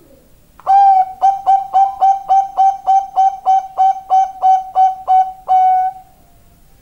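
Zebra dove (perkutut, Bangkok strain) singing its cooing song. It opens with one long coo, runs into a quick, even string of short staccato coos at about four a second on one pitch, and ends on a longer held coo.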